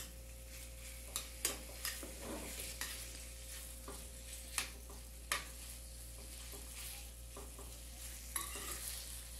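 Chicken breast strips frying in hot butter in a white frying pan, a faint steady sizzle, while a metal spoon stirs them and clicks against the pan now and then.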